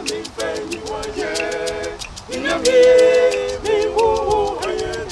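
Gospel singing by voices with a sharp percussion beat of about four or five strokes a second.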